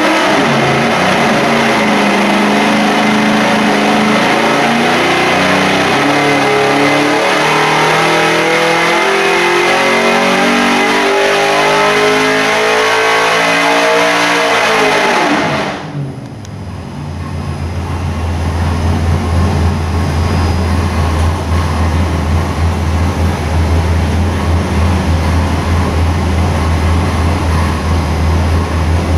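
427 cubic-inch small-block Chevy V8 with a roller cam and carburetor, making a full-throttle dyno pull, its pitch rising steadily to about 7,000 rpm over some fifteen seconds. The throttle then shuts, the revs fall away within about a second, and the engine settles into a steady idle.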